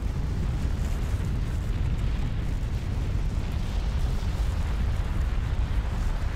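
Low, steady earth rumbling, a deep continuous rumble with no sharp breaks.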